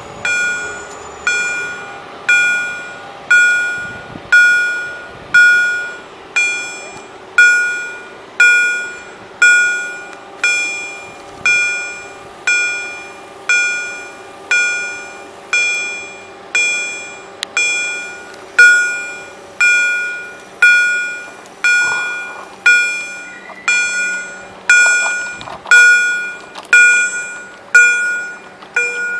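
Level-crossing warning bell (EHL type) striking about once a second, each strike ringing out with a bright metallic tone before the next: the crossing's warning is active.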